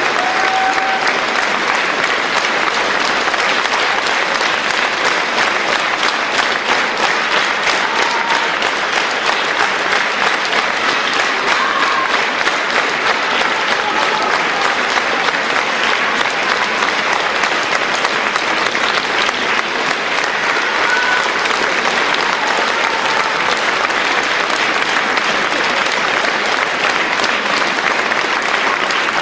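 Theatre audience applauding steadily and evenly, a dense wash of many hands clapping for the dancers' curtain call.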